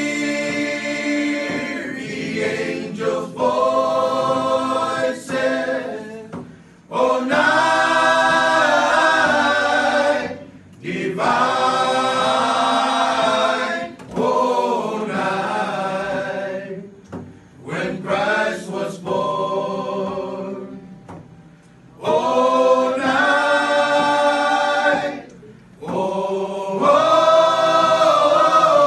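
A group of mostly male voices singing a Christmas carol together, with ukuleles and acoustic guitars strummed along. The singing comes in phrases of a few seconds, broken by short pauses.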